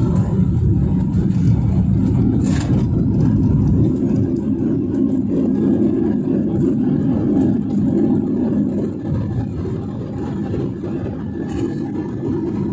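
Boeing 737-900ER's CFM56 jet engines and runway rumble, heard from inside the cabin as the airliner rolls out and slows after touchdown. The noise is loud and steady, eases a little after about nine seconds, and is broken by a short click about two and a half seconds in.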